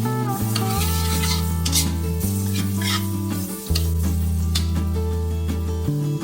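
Shredded ginger sizzling in hot oil in a wok as a spatula stirs and scrapes it, with short scrapes now and then, over background music with a slow, steady bass line.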